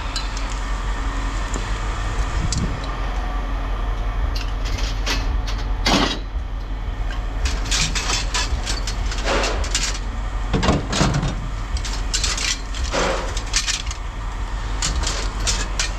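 Steady low rumble of an idling vehicle engine, with scattered clanks and knocks of scrap metal being handled.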